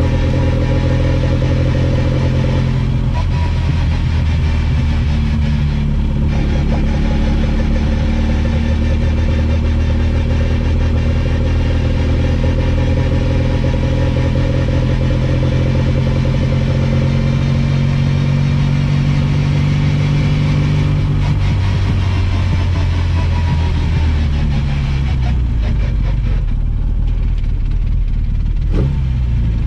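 Classic Mini's 1380cc A-series engine heard from inside the cabin while driving. Its note changes about three seconds in, holds steady, then the revs fall from about twenty-one seconds in as the car slows.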